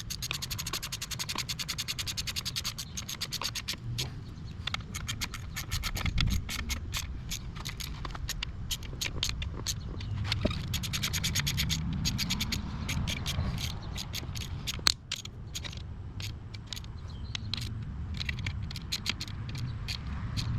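Hand ratchet clicking in several quick runs of even clicks, with scattered metal scrapes and one sharp knock about fifteen seconds in, over a low hum.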